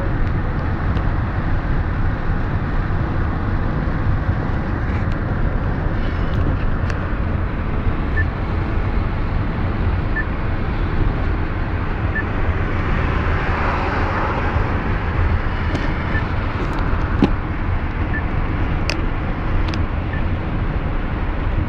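Steady road and engine noise inside a moving car's cabin, with tyres and engine running evenly at road speed; the noise swells a little about two-thirds of the way through.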